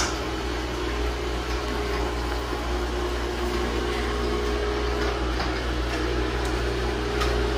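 Electric hoist motor of a homemade attic lift lowering the basket, running with a steady hum.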